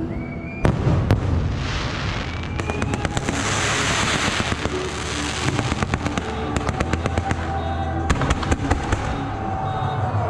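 Fireworks display: a loud bang about half a second in, then a rapid crackle of many small reports. A dense hissing spray runs through the middle seconds.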